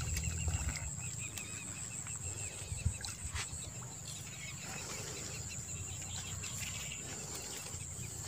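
Outdoor ambience: a steady high-pitched insect drone with a low rumble beneath it, and a soft thump about three seconds in.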